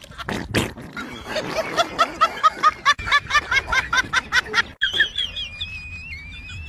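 A person's rapid, rhythmic snickering laughter, about five short 'heh' beats a second, breaking off a little before the five-second mark. A thin, wavering high-pitched tone follows.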